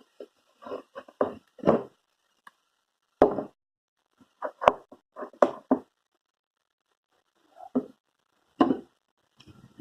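A series of short, irregular knocks and taps from objects being handled on a tabletop, with two sharper clicks about three and four and a half seconds in.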